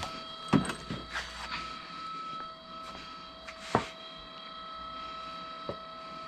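A few sharp knocks and clinks of tools and parts being handled during the fork fitting, the loudest about three and a half seconds in, over a steady high-pitched hum.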